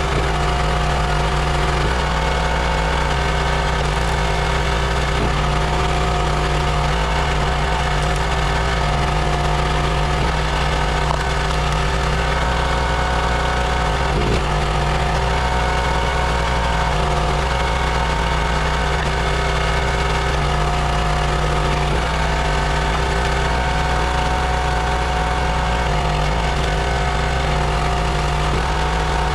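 Gas engine of a CountyLine 32-ton hydraulic log splitter running steadily while firewood rounds are split, its note shifting slightly a few times as the ram works.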